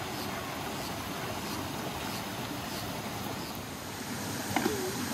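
A river flowing steadily, an even rush of water, with a couple of sharp clicks near the end.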